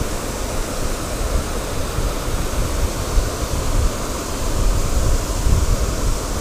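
Wind buffeting the GoPro microphone as a gusting low rumble, over a steady rushing hiss.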